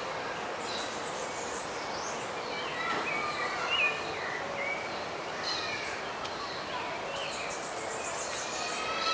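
Several birds chirping and calling in short whistled notes that slide up and down, loudest about four seconds in, over a steady hum of city traffic.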